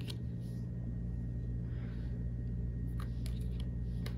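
Steady low hum of room noise, with a few faint light clicks of tarot cards being handled, twice close together about three seconds in.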